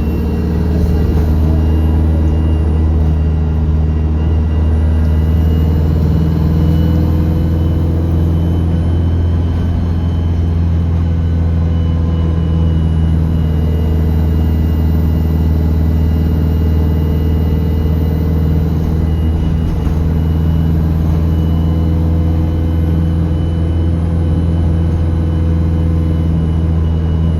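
Bus diesel engine running steadily under way, heard on board as a constant low drone with road rumble.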